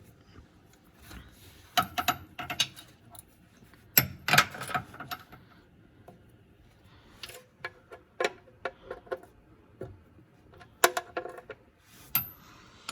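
Hand tools and metal parts clicking and clinking in scattered short bursts, the sound of work on the drain plug and bolts during an oil change.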